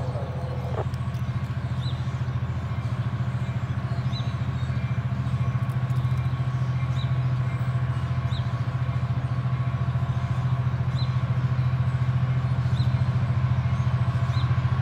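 EMD GP15-1 diesel locomotive running, a steady low engine drone with a rapid firing pulse and a faint whine, growing gradually louder as it approaches.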